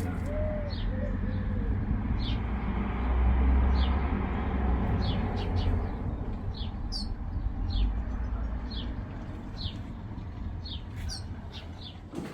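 A small bird giving short, high chirps that fall in pitch, repeated roughly once a second, over a low rumble that fades away.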